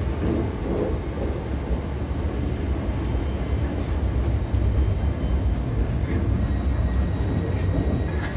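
Passenger train moving at a station platform, a steady low rumble.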